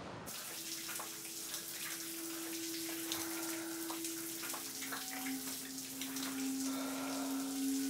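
Shower running, water spraying in a steady hiss, with low held tones underneath that step down in pitch about halfway through.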